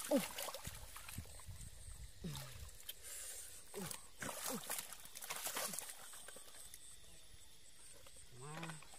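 Wet mud sloshing and squelching as hands and body work through a muddy ditch, with scattered small splashes. A few brief wordless vocal exclamations rise and fall, near the start, a few seconds in and near the end.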